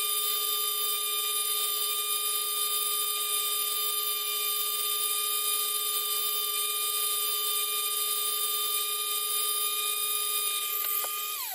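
Dremel rotary tool running at steady high speed, drilling window holes in a model's hull, with a steady high whine. Near the end it is switched off and the whine drops quickly in pitch as the motor spins down.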